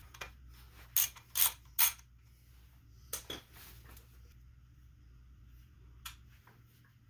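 Sharp metal clicks from hand tools working the detent cap plugs out of the top of a Mazda RX-7 FD manual transmission case: three close together about a second in, a couple more around three seconds, one near six seconds.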